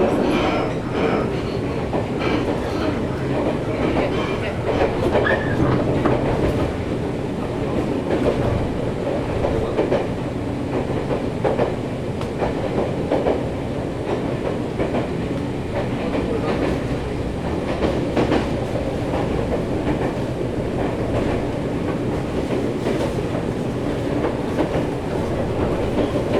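Nankai 7100 series electric train running at speed, heard from inside the car: a steady rumble of wheels on rail with frequent irregular knocks from the track.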